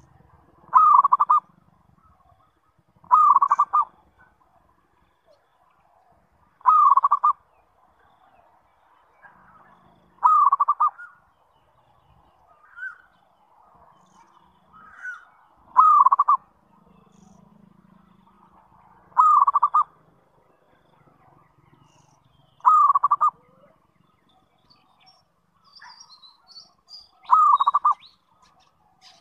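Zebra dove (perkutut) calling: a short burst of rapid staccato coos repeated eight times, about every three to four seconds.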